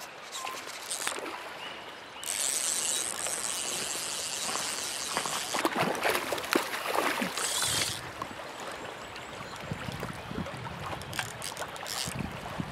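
Shallow stream water running and splashing, with a louder rush of water from about two seconds in that drops back after several seconds.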